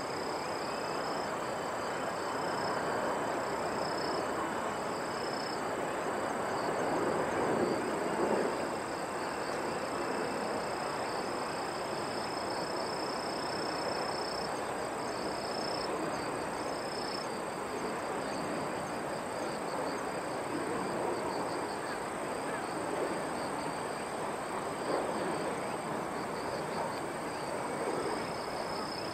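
Insects chirping in long on-and-off stretches over a steady high trill, above an even background of outdoor noise.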